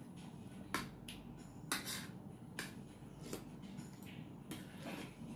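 Metal spoons clinking lightly against ceramic plates and a soup bowl during a meal, a handful of short sharp clicks at uneven intervals about a second apart.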